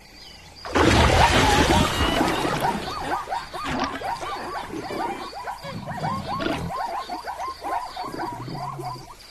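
Animal calls: a sudden loud burst about a second in, then rapid, repeated short squeaky chirps, several a second, with low grunts underneath at times.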